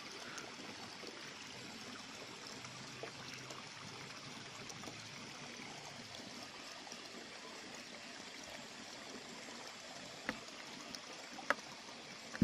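Faint steady trickle of running water, with two short clicks near the end about a second apart.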